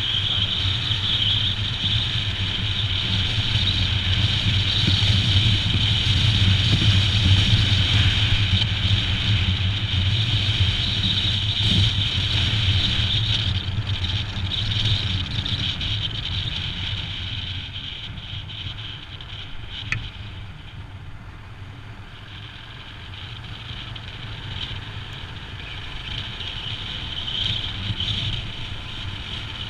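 Royal Enfield Himalayan motorcycle's single-cylinder engine running steadily under way at road speed. It goes quieter for several seconds past the middle, with a single click about twenty seconds in, then picks up again near the end.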